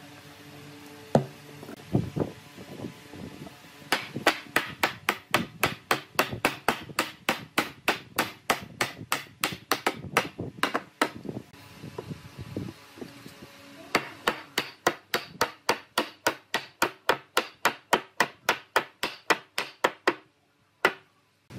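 Hammer striking wood in two long runs of quick, even blows, about three or four a second, with a pause of a few seconds between them.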